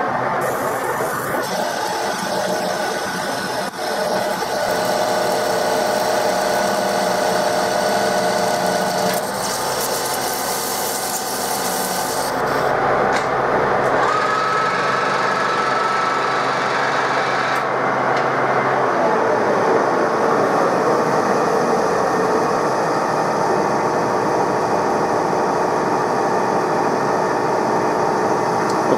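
TOS SN63B gear-head lathe running under a turning cut, a carbide insert taking a heavy cut on a steel wheel hub, with a steady machine hum and the hiss of chips. A thin higher tone comes in about halfway through.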